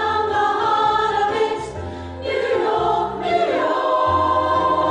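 Women's choir singing together, holding long notes that change pitch about once a second.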